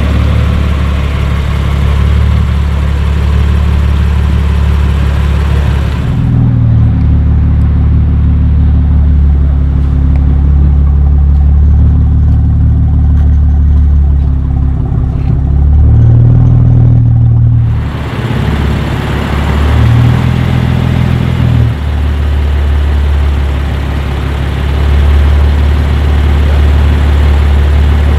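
BMW M2 Competition's twin-turbo straight-six, fitted with TTE740 turbos and an Akrapovic Evolution exhaust with downpipes, idling with a deep, steady drone. Its note steps up briefly a few times, on light throttle.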